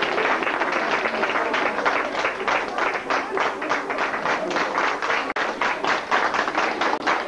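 Audience clapping in rhythm, about four to five claps a second, over a steady crowd noise.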